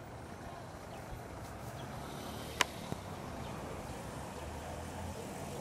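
Street traffic: vehicle engines running with a low steady hum, with a sharp click about two and a half seconds in and a smaller one just after.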